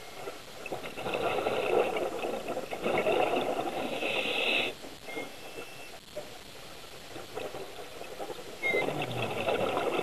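Scuba diver breathing through a regulator, heard through the camera housing underwater: a long rush of exhaled bubbles for several seconds, ending in a brief high hiss, then a quieter pause before the next exhale begins near the end.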